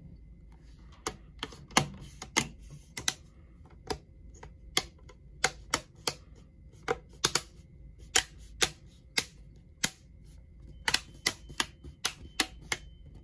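Plastic front bezel of a Samsung Chromebook's screen being pressed back onto the lid, its clips snapping into place in a long series of sharp clicks, with a quicker run of them near the end.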